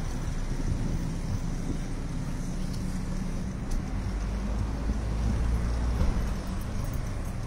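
Car driving slowly in traffic, heard from inside the car: a steady low engine and road rumble that swells for a few seconds past the middle.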